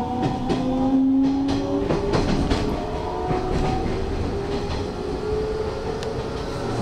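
Hanshin electric train running along the track, its traction motors whining in several tones that rise slowly as it gathers speed, with wheels clicking over rail joints mostly in the first half.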